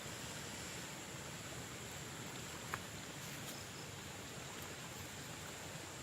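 Quiet outdoor ambience with a steady high-pitched insect drone, and one faint click about three seconds in.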